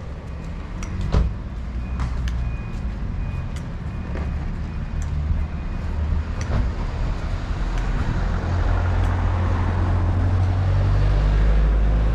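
A motor vehicle's engine running with a low rumble that grows louder over the second half, with a few short clicks.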